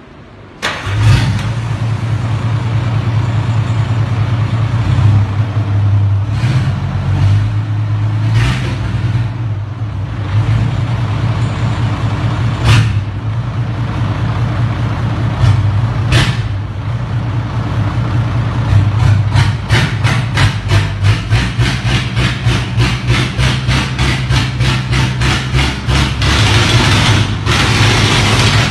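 Hino J08C inline-six diesel engine starting about a second in and then running, with a steady low drone. From about two-thirds of the way through it runs with a fast, even pulsing, and it is revved up near the end.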